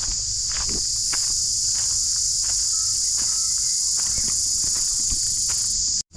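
Loud, steady high-pitched insect chorus droning without a break, with faint irregular footsteps and a few soft bird chirps beneath it.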